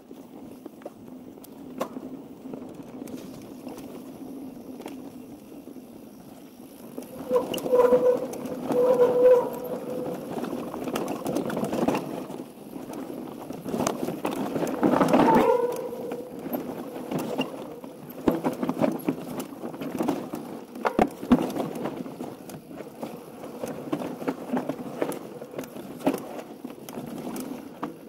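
Mountain bike rolling fast down a dirt forest trail: tyre noise on the dirt with the bike rattling and knocking over roots and bumps, heard through a handlebar-mounted camera. Short squeals come about eight seconds in and again, loudest, near fifteen seconds.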